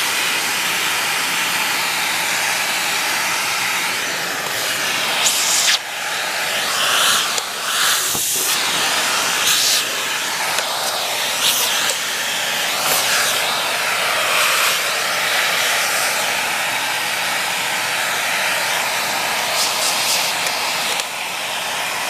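Vacuum cleaner running steadily, the suction hissing through its hose nozzle as it draws loose cat fur, with brief surges in the rush of air every second or two.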